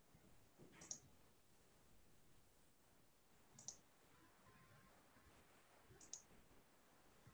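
Near silence broken by three faint, sharp clicks, spaced about two and a half seconds apart.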